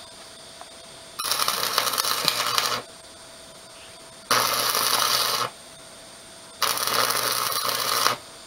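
Electric arc welding on steel rebar: three separate bursts of crackling and sizzling from the arc, each lasting about one to one and a half seconds, with a low hum under each.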